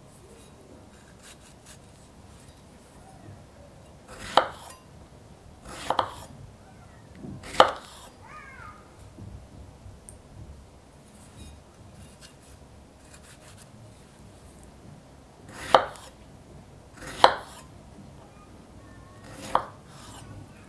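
Small kitchen knife slicing through fresh strawberries on a wooden cutting board: six separate cuts, each a brief slicing swell ending in a sharp knock of the blade on the board, three in the first half and three more in the second half.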